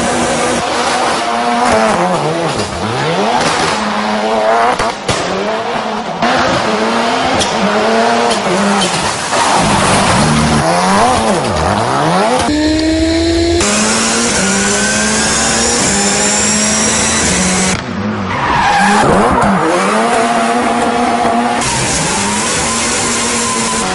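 Ford Fiesta rally car's turbocharged four-cylinder engine revving hard up and down through rapid gear changes while its tyres squeal and skid in long drifts. The sound jumps abruptly several times between shots.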